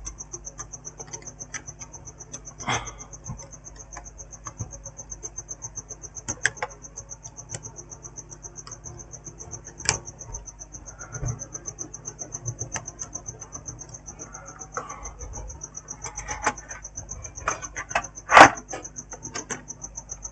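A cricket chirping steadily in a fast, even pulse, with scattered small clicks and knocks of screws and tools being handled on a laptop, and one sharper knock near the end.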